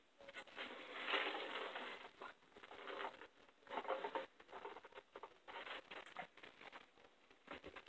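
Faint, irregular rustling and handling noises from a person eating, with a sip through a straw from a foam cup about four seconds in.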